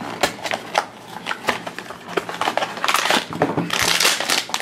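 A small cardboard blind box being opened by hand, with sharp clicks and scrapes. From about three seconds in, the thin foil bag inside crinkles as it is pulled out and handled.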